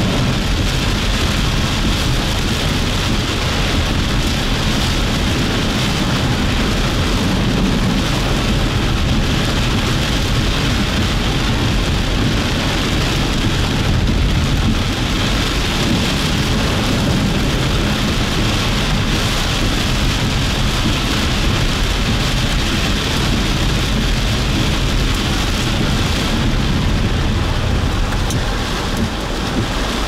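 Heavy thunderstorm rain falling steadily, with a continuous low rumble underneath.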